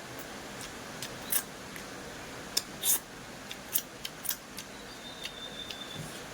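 Close-up eating sounds: a scattering of short, crisp clicks and crunches from chewing and lip smacking, about a dozen over several seconds with a couple of louder ones near the middle.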